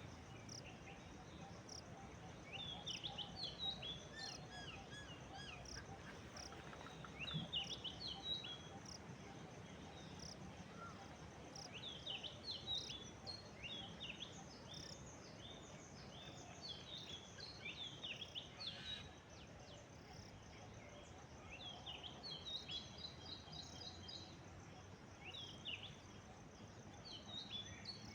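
Common myna calling in short clusters of quick chirps and whistles every few seconds, over a steady high insect trill.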